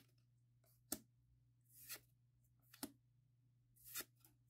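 Pokémon trading cards being flipped through one at a time, a card sliding off the stack about once a second: a sharp click and then three softer swishes. A faint steady low hum lies underneath.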